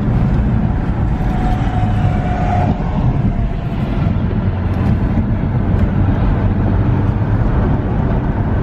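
A car running, a steady low rumble with no breaks.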